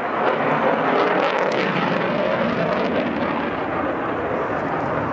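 Jet noise from an F-22 Raptor's twin Pratt & Whitney F119 turbofan engines as it flies past, a steady, even roar.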